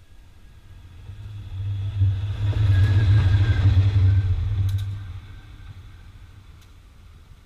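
Diesel locomotive passing close by: its engine hum swells as it approaches, is loudest for a few seconds as it goes past, then fades as it draws away. A few sharp clicks come late in the pass.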